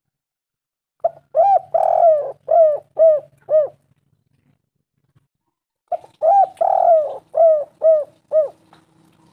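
Spotted dove cooing: two phrases of about six arching coos each, the third coo of each phrase longer and fuller, one phrase starting about a second in and the next about six seconds in.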